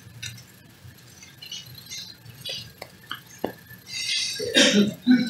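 Bible pages being leafed through: quiet rustling and small clicks, with a louder burst of noise about four seconds in.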